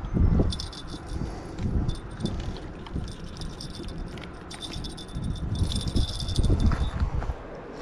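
Wind rumbling on the microphone, with light metallic jingling and clicking as metal fishing pliers are handled.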